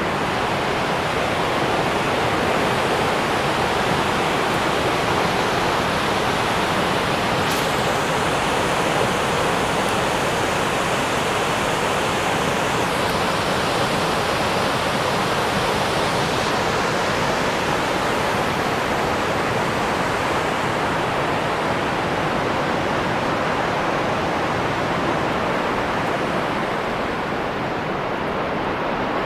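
Niagara Falls' water pouring over the brink: a steady, dense rush of noise with no breaks.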